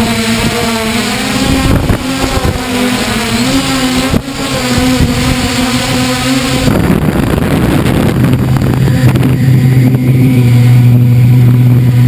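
Multirotor drone's electric motors and propellers whining steadily, close to the on-board camera, the pitch drifting slightly with the throttle. About 7 s in the sound changes suddenly to a lower, stronger hum with less hiss.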